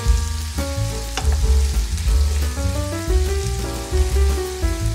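Chopped onion sizzling in oil in a frying pan, stirred with a wooden spatula. Background music runs over it, with a heavy bass and a melody of short notes.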